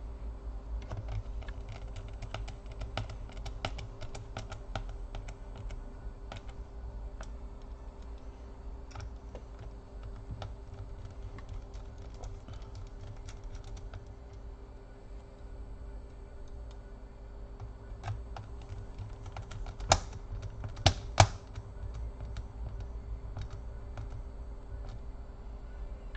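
Rapid small clicks and taps of a precision screwdriver and tiny screws on a laptop's bottom plate as the screws are driven back in. Three sharp, louder clicks come about twenty seconds in, over a low steady hum.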